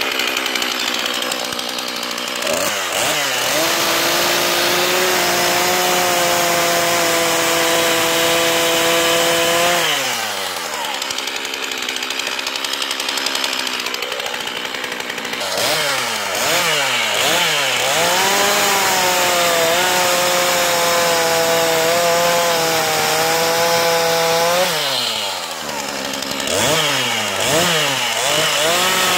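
Two-stroke Stihl chainsaw cutting dry black locust logs. It revs up to full throttle and holds a steady note through a cut of about seven seconds, then drops back to idle for a few seconds. It revs up again for a longer cut, and gives a few short throttle blips near the end.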